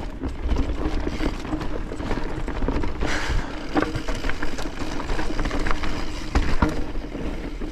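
Mountain bike riding down a dirt trail: a steady rush of tyre noise with frequent short knocks and rattles as the bike goes over bumps, and low wind rumble on the microphone.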